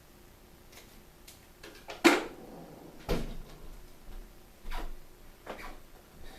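Scattered clicks and knocks of small objects being handled and set down, about six in all, the loudest about two seconds in.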